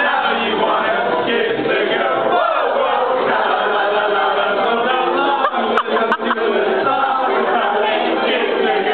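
A group of men singing together in a loose chorus into a microphone, with a few sharp clicks just past halfway.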